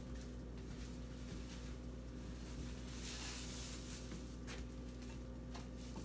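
Faint rustling and crinkling of a plastic sheet being spread over a kitchen counter, loudest about three seconds in, over a steady low electrical hum.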